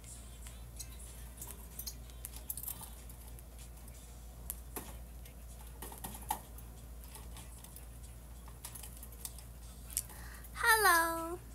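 Light, scattered tapping of fingers typing on a device. About ten and a half seconds in, a woman's short exclamation, falling in pitch and then holding, is the loudest sound.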